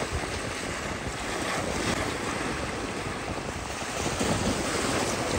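Sea waves washing over the shoreline rocks, mixed with wind buffeting the microphone: a steady rushing noise with a low rumble.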